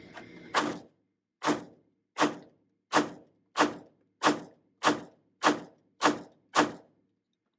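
Taurus TH9 9mm pistol fired ten times in a steady string, about one shot every two-thirds of a second. The gun cycles each round without a malfunction.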